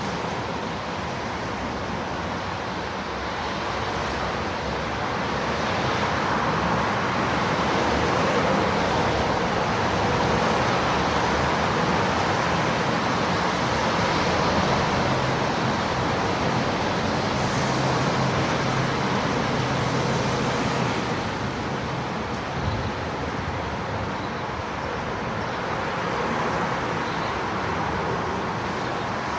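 Distant street traffic in light rain: a steady wash of passing vehicles that swells over several seconds, with a low engine hum near its peak, then eases back.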